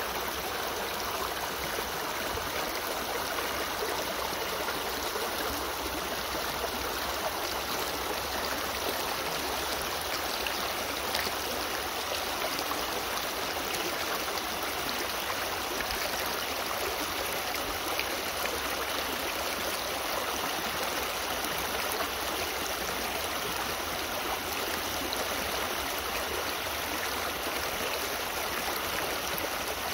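Shallow rocky creek rushing steadily over and around stones.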